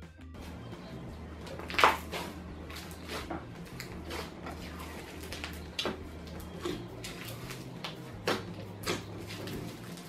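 Hands squeezing and kneading a large lump of slime mixed with instant fake snow in a glass bowl: irregular squishing and crackling, with sharper squelches or knocks now and then, the loudest about two seconds in. The slime is gritty and lumpy with snow granules, like coarse salt.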